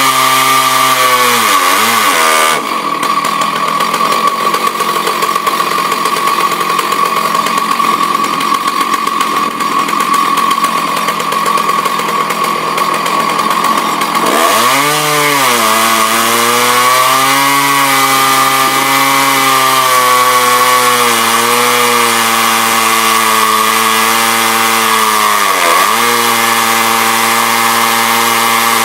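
Husqvarna 298 two-stroke chainsaw running at high revs while milling. For about eleven seconds in the middle its even tone gives way to a rougher, noisier sound, then the steady high-revving tone returns with brief dips in pitch.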